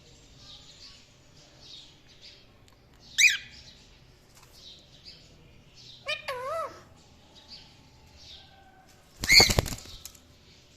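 A cockatiel and an Indian ringneck parrot chirping: soft high twittering throughout, broken by three louder calls. One is a sharp call about three seconds in, one a wavering call about six seconds in, and the loudest is a harsh screech about nine seconds in.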